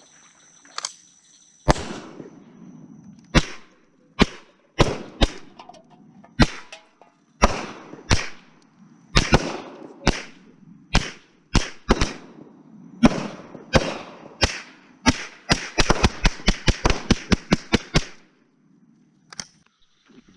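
Semi-automatic gunfire, about thirty shots: single shots at uneven spacing for the first two-thirds, then a fast run of about a dozen shots, roughly four a second, that stops a couple of seconds before the end. A faint steady insect buzz sits under the start.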